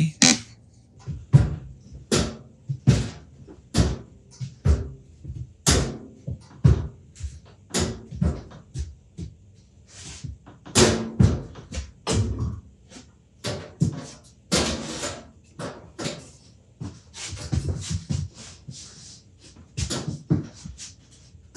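Irregular clunks and knocks of workshop tools and equipment being handled and set down on a workbench, about one or two a second.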